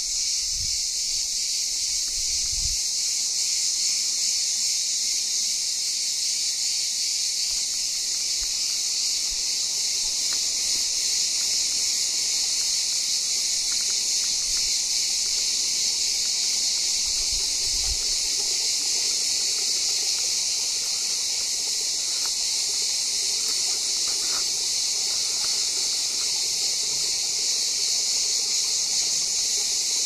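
A steady, high-pitched buzzing chorus of insects that never lets up, with a few soft low bumps near the start and again about halfway through.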